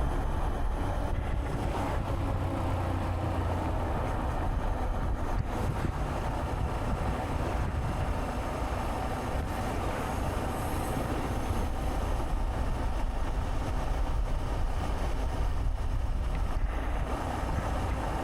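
Honda Monkey 125's single-cylinder four-stroke engine running steadily while riding, mixed with a steady rush of wind and road noise.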